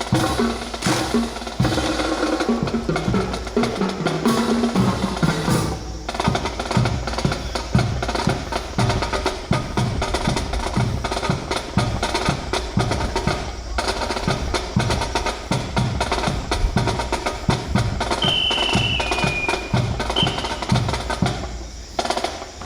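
Percussion-driven music with a steady, quick beat of drums and sharp wood-block-like clicks, with a brief high tone that steps down a little at about 18–20 s.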